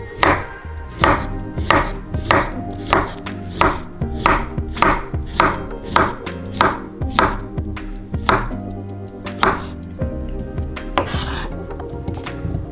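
Kitchen knife slicing a peeled banana on a wooden cutting board, each cut ending in a sharp knock on the board, about fifteen cuts at a steady rhythm of roughly one every two-thirds of a second. The cuts stop about ten seconds in.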